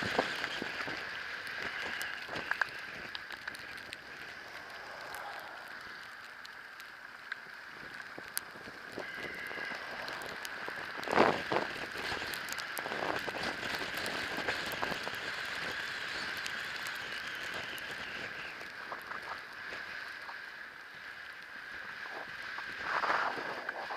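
Riding sounds of an e-bike in a blizzard: a steady hiss of tyres and wind with a thin steady whine. Scattered clicks and knocks break through, the loudest about eleven seconds in and again near the end.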